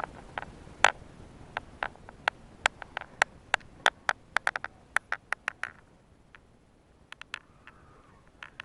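A cat crunching dry cat treats: a quick run of sharp crunches, about two to three a second, that thins out to a few scattered ones after about five and a half seconds.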